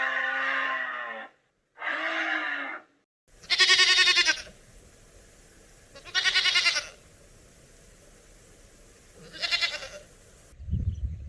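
Livestock bleating: five separate calls. Two clean bleats come in the first three seconds. After a cut, three louder bleats follow a few seconds apart over a steady hiss. Near the end a low rumble, like wind on the microphone, comes in.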